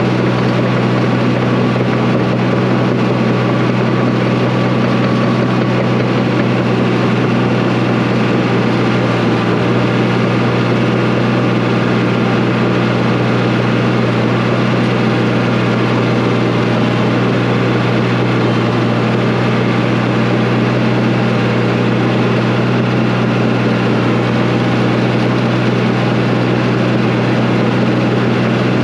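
Diesel engine of a piece of earthmoving equipment running steadily, a loud even drone that holds one pitch with no revving.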